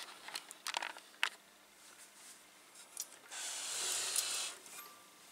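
Handling noise on a workbench: a few light clicks and knocks, then a rubbing scrape lasting about a second, a little over three seconds in.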